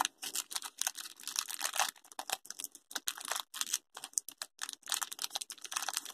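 A small foil blind-bag wrapper crinkling in the fingers as it is opened and the toy is pulled out, a rapid, irregular run of sharp crackles.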